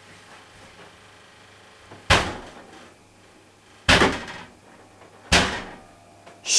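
Kitchen cupboard doors banging three times, each a sharp knock with a short ring, the first about two seconds in and then about every second and a half.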